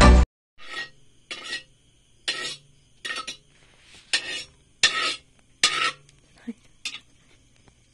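Kitchen cookware clattering as skinned frogs are handled in a basin: a series of about eight short knocks and scrapes, roughly a second apart.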